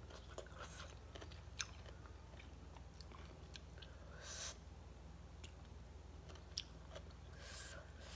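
Close mouth sounds of a person eating shredded mango salad by hand: faint chewing with small crunches and wet clicks, and two short breathy hisses, one midway and one near the end.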